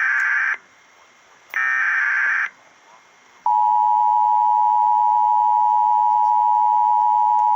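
Emergency Alert System header data bursts, harsh screeching digital tones: one ends just after the start and another comes about two seconds in. About three and a half seconds in, the steady two-tone EAS attention signal begins and holds at a constant pitch. Together they open a Child Abduction Emergency (Amber Alert) activation.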